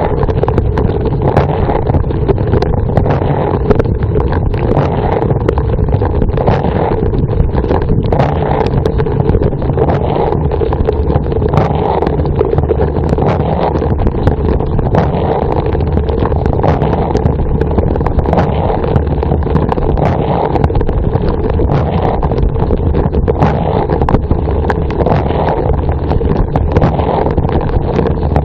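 Dishwasher running its wash cycle, heard from inside the tub: water spraying and splashing steadily and loudly, with a low drone beneath and many small splash ticks.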